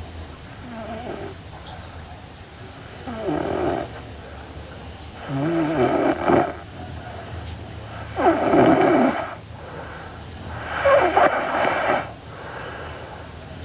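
A sleeping girl snoring, about five snores roughly two and a half seconds apart, each lasting about a second. The first is faint and the later ones are louder.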